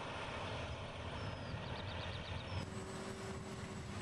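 Tractor engine running steadily under load while pulling a large multi-furrow reversible plough through soil, a low rumble with a noisy wash above it. A few faint high chirps and a quick run of ticks come in the first half, and the sound changes a little over halfway through.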